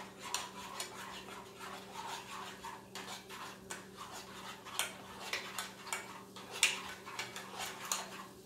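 A metal utensil scraping and tapping inside a small saucepan: a run of light, irregular scrapes and clicks.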